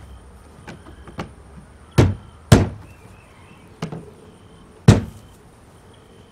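Hard plastic knocks and clicks as white PVC pipe and fittings are pushed together and tapped into place during a dry fit: a few sharp knocks, the loudest about two seconds in and again about five seconds in, with lighter clicks between.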